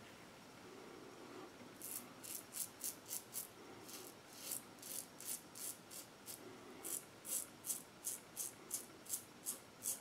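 WCS 3D Wrap double-edge safety razor with a Blue Bird blade scraping through lathered stubble on the neck in short, quick strokes. The strokes come about three a second, starting about two seconds in, in three runs with brief pauses between.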